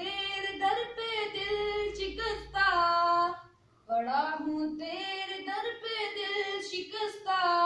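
A child singing a hamd, an Urdu devotional hymn praising God, unaccompanied. There are two long melodic phrases with a short breath pause about three and a half seconds in.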